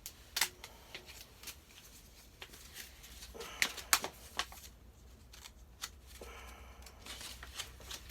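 Toy packaging being handled: scattered sharp clicks and short bursts of rustling of plastic and paper, busiest between about three and five seconds in.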